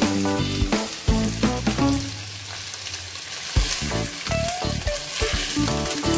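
Raw chicken pieces sizzling in hot oil in a nonstick pan, stirred and turned with a silicone spatula that scrapes and knocks against the pan. Background music plays over it.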